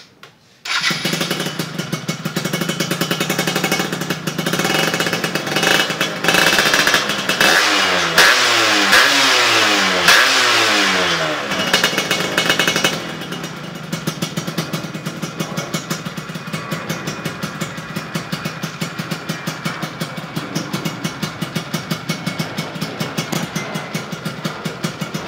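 Yamaha F1ZR's two-stroke single-cylinder engine, breathing through an AHM chamber-type expansion exhaust, starts up just under a second in. It is revved several times, with rising and falling pitch, in the middle, then settles to a steady idle.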